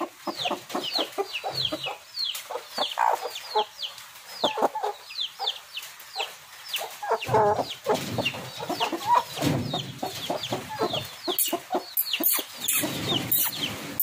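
Aseel hens clucking, over a steady run of short, high, falling peeps at about two or three a second. A few sharp clicks come near the end.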